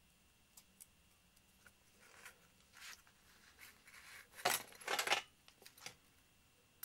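A hobby scalpel cutting and scraping through a thin sheet of model-making wood on a workbench: a few faint ticks, then several short rasping strokes, the loudest two about four and a half and five seconds in.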